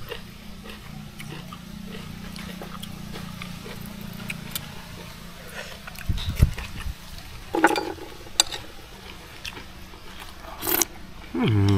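A person eating with his fingers, chewing and smacking his lips, with two louder smacks in the second half. A short hummed voice begins at the very end.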